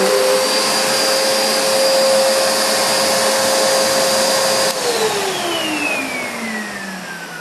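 Hoover Nano Lite upright vacuum cleaner running steadily with its motor whine and rush of air, then switched off about two-thirds of the way in, its whine falling in pitch and fading as the motor spins down.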